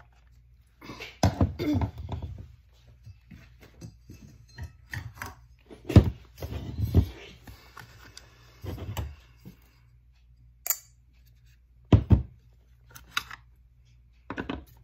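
Irregular knocks, clunks and clicks of hand work on a small Stihl 009 chainsaw, opening its air filter cover with a screwdriver to reach the carburetor. The loudest thumps come about a second in, about six seconds in and about twelve seconds in.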